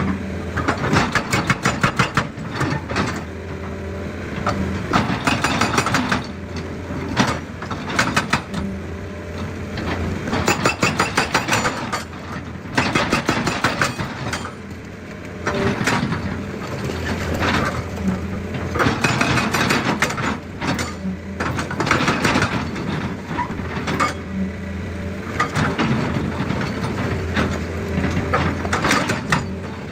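Excavator working rock: its diesel engine runs steadily while bursts of rapid, sharp knocks and rock clatter come and go every few seconds.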